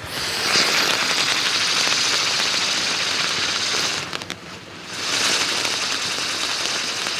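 Sunflower wheel, a ground-spinner firework, spinning on the ground and spraying sparks with a steady hiss and crackle. The sound drops away about four seconds in, then picks up again a second later.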